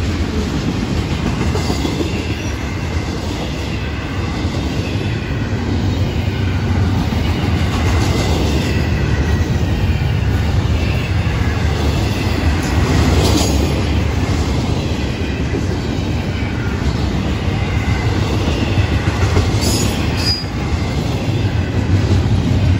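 Florida East Coast freight train's double-stack intermodal well cars rolling past close by: a steady heavy rumble of steel wheels on rail, with a faint high wheel squeal wavering over it. There are a couple of brief sharp clanks, one a little past the middle and one near the end.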